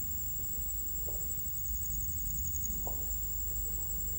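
Crickets chirping steadily as a continuous high-pitched night trill, over a faint low hum, with two or three soft taps.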